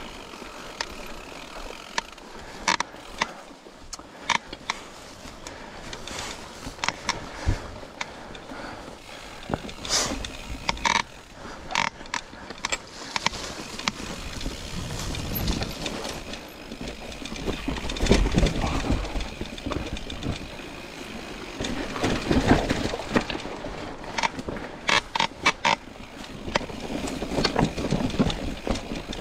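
Mountain bike riding over a rough, rocky trail: scattered sharp clicks and rattles of the bike over a rumbling rush of noise that swells through the middle stretch.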